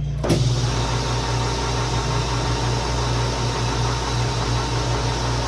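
Metal lathe running, a steady low hum with an even hiss that comes in suddenly just after the start, as the tool takes a turning cut on a small bushing.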